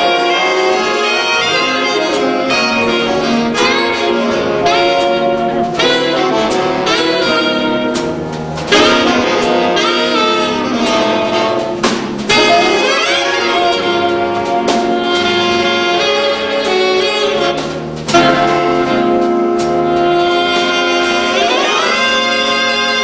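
A big jazz band of saxophones, trumpets, trombones and rhythm section playing live: full held chords broken by sudden louder ensemble accents about 9, 12 and 18 seconds in, several led in by rising brass glides.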